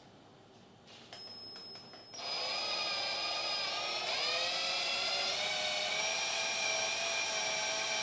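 Cordless drill with a 1.5 mm bit spinning against the plastic hub of a graphics card fan: a brief faint whir, then a steady high whine from about two seconds in, its pitch dropping a little about four seconds in.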